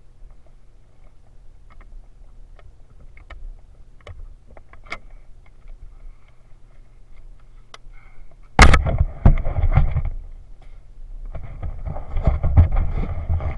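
Low, steady background with scattered small clicks, then a sudden loud knock on the camera about two thirds of the way in. Heavy wind buffeting and rumble follow as the dirt bike rides over sand.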